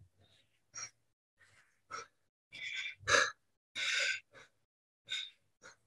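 A man breathing hard from exertion during a workout set, in short, heavy puffs of breath, about eight of them.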